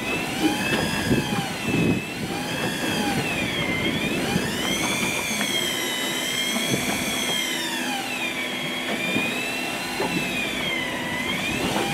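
Electric fishing reel winding in line, its motor giving a whine whose pitch rises and falls slowly every couple of seconds as the load on the line changes.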